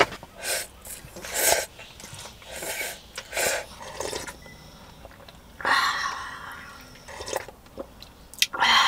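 A person eating instant ramen up close: several short slurps of noodles, then sips and a longer slurp of broth drunk straight from the paper cup about six seconds in.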